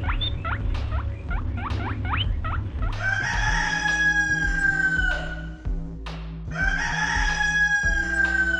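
Animal calls: a run of quick rising squeaks, about three a second, then two long held calls that fall slightly in pitch, over background music.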